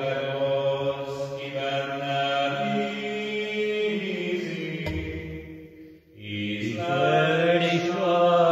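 A man's voice singing a slow communion psalm in long, held notes, with a short break about six seconds in.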